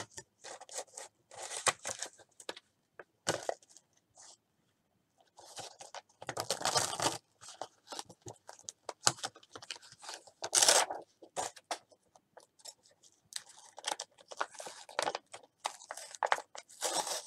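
Craft materials in paper and plastic packaging being handled and rummaged through: irregular rustling, crinkling and scraping, with louder bursts about six and ten seconds in.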